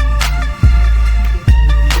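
Background music: an electronic hip-hop beat with a heavy bass, a kick drum about every second, and a repeating synth melody.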